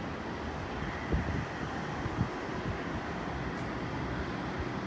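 Wind buffeting the microphone, with a few low thumps about one and two seconds in, over a steady rush of distant airport noise.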